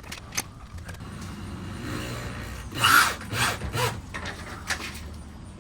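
A screw being driven into a wooden board to hold it up against a porch rafter, with a short low drill hum about two seconds in followed by several rasping, rubbing bursts of wood and screw.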